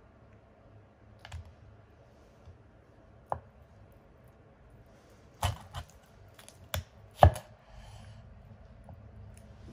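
Deba knife cutting through a black sea bream's lower jaw on a wooden board, making a series of sharp cracks and knocks. A few come in the first seconds, then a quick cluster, the loudest about seven seconds in.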